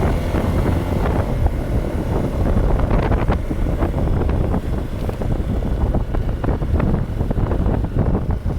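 Heavy wind buffeting the microphone, with a motorcycle engine running underneath.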